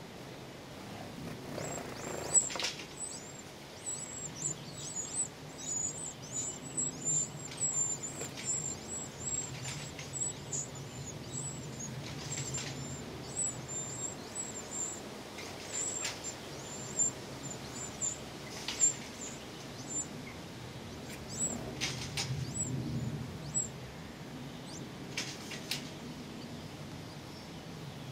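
Wren nestlings begging at a feeding visit: a rapid run of thin, very high cheeps that goes on for most of the first twenty-odd seconds and stops a few seconds before the end. A few soft knocks are heard among them.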